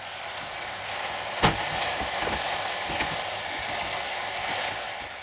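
Vegetables and kodo millet sizzling as they are roasted in an open steel pressure cooker, stirred with a metal spoon that clicks against the pot, one sharper knock about one and a half seconds in. The sizzle grows in the first second and dies down near the end.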